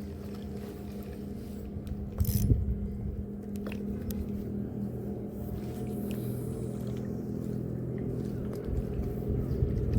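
Steady low engine drone with an even pitch throughout, with a short noisy rustle and a few clicks about two seconds in.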